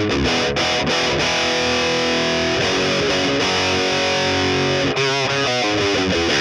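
High-gain overdriven electric guitar riff: a Les Paul Tribute's 490T bridge pickup into a Precision Drive pedal and a PRS MT15 amp, heard through a 2x12 cabinet with Celestion Greenback speakers and an SM57 microphone. Quick picked notes give way about a second and a half in to a chord held for about three seconds, then quick picking starts again near the end.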